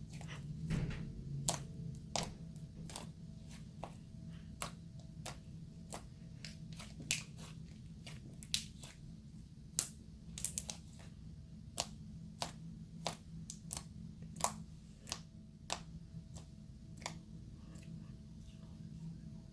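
Strawberry confetti slime being worked by hand, giving irregular sharp pops and crackles, sometimes several close together, over a steady low hum.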